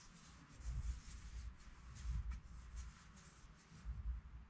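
Faint rustling and rubbing of hands turning a small portable speaker over, with a few soft low bumps.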